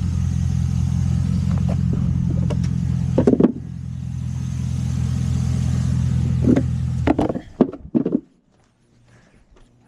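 Car engine idling steadily after a fresh oil change, with a knock about three seconds in, then shut off about seven seconds in, followed by a few clunks.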